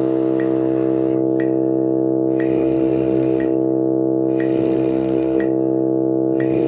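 Two tuba mouthpieces buzzed together in a warm-up exercise, over a steady sustained accompaniment chord, with a metronome clicking about once a second.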